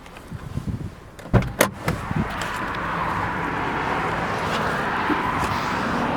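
A few sharp clicks and knocks from handling the small hatchback's cabin fittings. After them, a steady rushing noise builds up over about a second and then holds.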